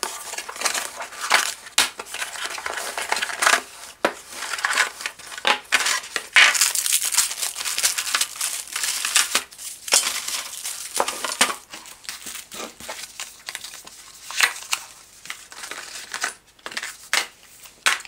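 Small cardboard box being opened and its contents unpacked by hand: irregular rustling, scraping and crinkling with scattered small knocks, quieter near the end.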